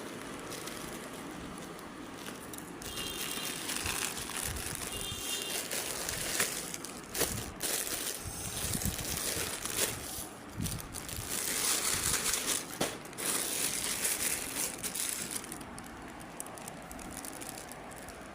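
Plastic packaging crinkling and rustling as a parcel is unwrapped by hand. The rustle is uneven, starting about three seconds in, loudest a little past the middle and dying down near the end.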